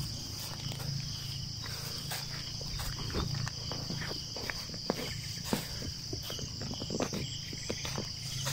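Steady high-pitched insect chorus, with scattered light rustles and crunches of hands and feet working in dry cut grass and soil.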